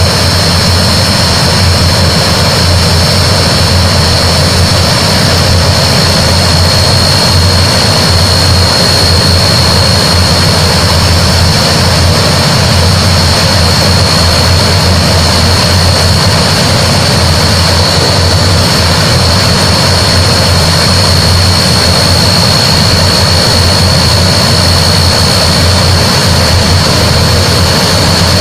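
Antonov An-12's four Ivchenko AI-20 turboprop engines running steadily, a loud, even propeller drone under a high, constant turbine whine.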